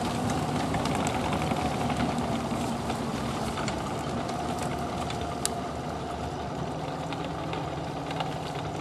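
Studebaker M29 Weasel's six-cylinder flathead engine running steadily, with scattered light clicks and one sharp click about five and a half seconds in.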